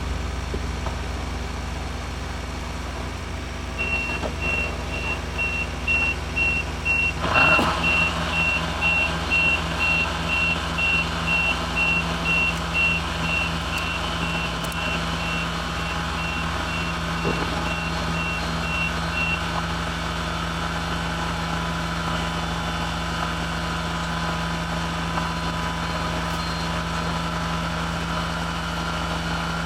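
John Deere 410 backhoe loader's diesel engine running, with its reverse alarm beeping about twice a second for some fifteen seconds, starting a few seconds in. About seven seconds in the engine revs up and then holds a higher, steady note.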